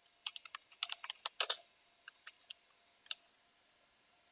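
Computer keyboard keystrokes: a quick run of typing in the first second and a half, then a few scattered single keystrokes.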